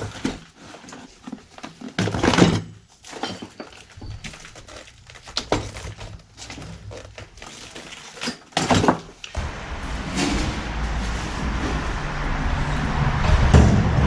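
Scattered knocks and clatter of hard objects being handled, with two louder rattling bursts at about two and a half and nine seconds. After about nine seconds a steady low rumbling noise takes over.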